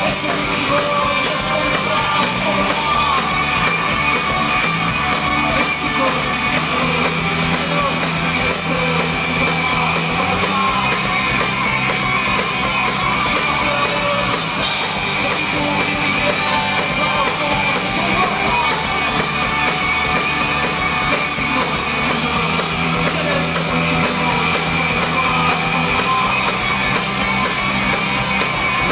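Rock band playing live at full volume: electric guitar and drums with a male voice singing into the microphone.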